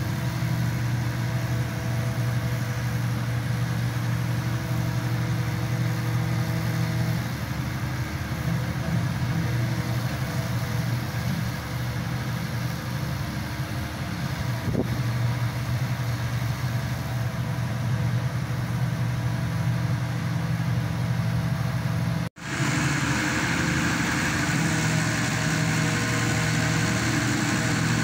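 Engine of a hydraulic static pile driver running steadily, with a constant low hum. The sound cuts out for an instant about three-quarters of the way through and then continues.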